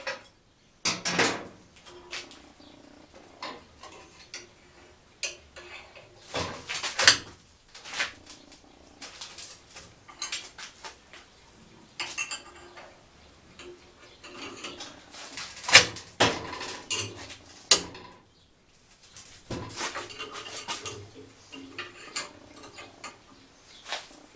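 Steel rods, pliers and the steel cone of a metal garden ornament clinking and knocking together on a metal workbench: irregular sharp metallic clinks, some ringing briefly, with a short lull about three-quarters of the way through.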